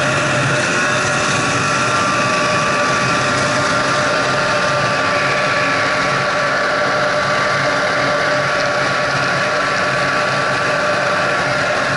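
Snowmobile engine running steadily at cruising speed along a groomed trail, a constant drone that holds its pitch with no revving.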